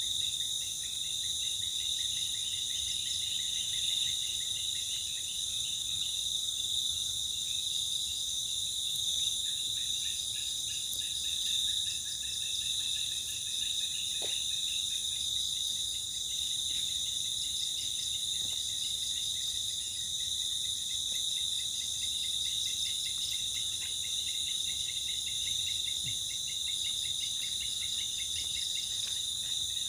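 Chorus of crickets and other insects trilling steadily at several high pitches, some of the trills finely pulsed.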